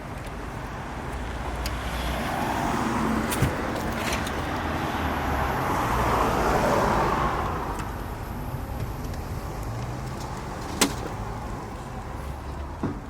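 A road vehicle going past, its engine and tyre noise building up and then fading away over several seconds, with a couple of sharp clicks.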